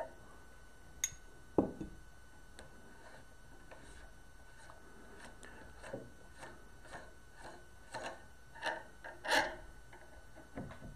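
Metal tool-and-part handling: scattered clicks, a sharp knock about a second and a half in, and short scraping and rubbing sounds, loudest near the end. This is an armorer's wrench working an AR-15 barrel nut loose and the nut and barrel being unscrewed and slid off the upper receiver.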